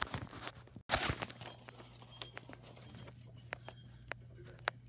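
Handling noise: rustling as the hand-held phone is moved about, then a few soft, scattered clicks and taps over a low steady hum.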